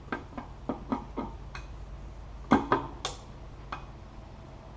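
A string of light clicks and knocks, about a dozen of them, with two louder ones about two and a half seconds in, over a faint steady low hum. The knocks come from a zero-clearance insert being handled and seated in a table saw's throat opening while it is levelled.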